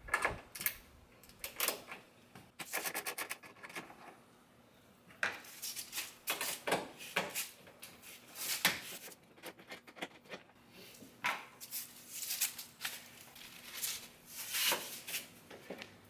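Hand tools and fasteners being worked at a car's front bumper and radiator support: a string of sharp clicks, knocks and rattles, with a quick run of close-spaced clicks about three seconds in.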